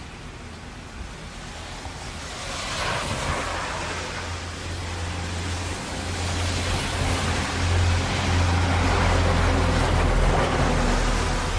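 Traffic in heavy rain: a steady hiss of tyres on wet pavement with a low engine rumble underneath, swelling louder from about two seconds in as vehicles pass close.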